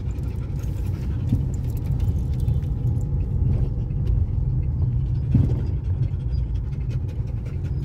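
Steady low rumble of a car driving, heard from inside its cabin, with the noise of surrounding traffic.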